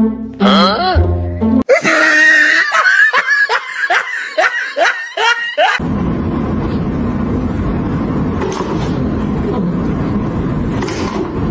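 Music for the first second and a half. It cuts to laughter in quick repeated bursts for about four seconds, then to a steady rushing noise.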